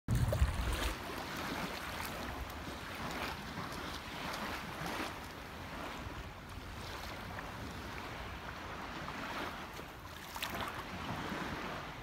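Small waves lapping in shallow sea water in repeated soft washes, with wind buffeting the microphone in the first second.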